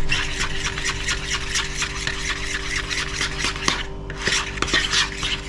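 A utensil stirring a thick beer batter in a bowl, with quick, repeated scraping strokes against the bowl and a steady hum underneath.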